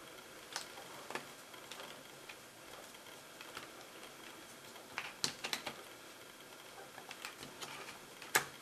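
Faint scattered clicks and taps from fingers working the plastic screen bezel of a laptop as its screws go back in. There is a cluster of clicks about five seconds in and a sharper single click near the end.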